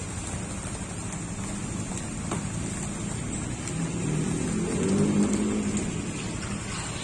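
A motor vehicle engine running with a steady low hum, swelling louder about four seconds in and easing off again about two seconds later.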